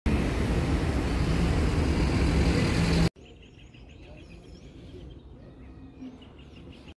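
Road traffic running steadily along a highway, a dense rumble of passing cars. It cuts off abruptly about three seconds in, leaving quieter open-air ambience with small birds chirping.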